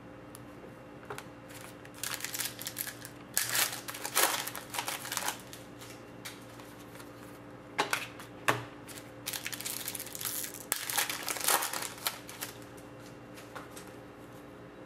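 Foil trading-card pack wrapper crinkling and rustling in the hands, with cards sliding against each other as they are pulled out and handled. The rustling comes in irregular bursts.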